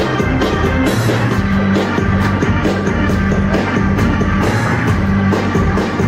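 Live band music: electric organ holding low notes over a steady drum beat, loud throughout.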